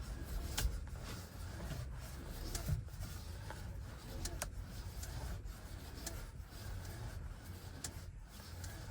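Steering column of a 2023 Chevy Bolt EV clicking and creaking as the steering wheel is turned back and forth: several sharp, irregularly spaced clicks over a low rubbing creak. It is a steering column fault that a dealer's repair did not cure.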